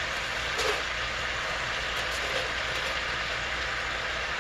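Steady sizzle of onion and olive oil in a hot stainless sauté pan as wet, chopped kale and turnip greens are piled in, with a low hum underneath.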